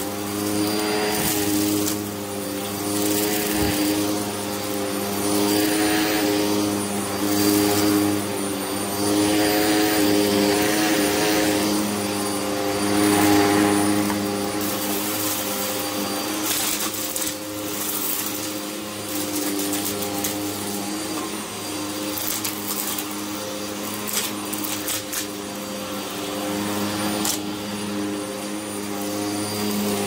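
Hoover upright vacuum cleaner running on carpet: a steady motor hum under a rushing of suction that swells and fades as it is pushed back and forth. A few crackles of grit being sucked up come a little past halfway.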